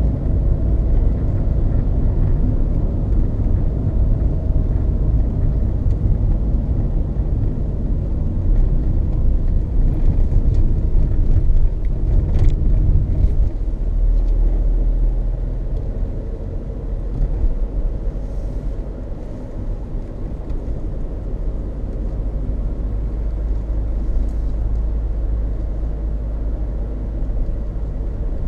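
Loud tyre road noise inside the cabin of a Peugeot 306 2.0 HDi on Dunlop Sport BluResponse tyres: a steady low rumble that eases somewhat about halfway through, with a single knock near the middle. The owner suspects the noise comes from tread wear on the two-year-old tyres, since suspension, bearings, balance and alignment have all been checked.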